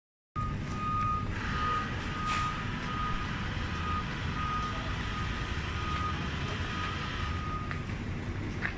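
Vehicle reversing alarm beeping at one steady pitch, about one and a half beeps a second, over low street traffic rumble; the beeping stops near the end.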